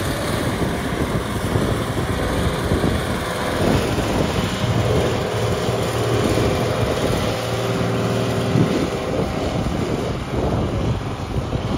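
Case 2670 four-wheel-drive tractor's turbocharged six-cylinder diesel running steadily under heavy load while it pulls a field cultivator through the soil.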